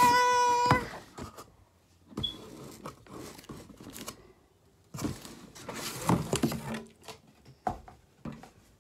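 A brief excited high-pitched vocal exclamation, rising in pitch, at the start, then cardboard scraping and rustling as the boxed iPad Pro is slid out of its shipping box and handled, with a few small taps near the end.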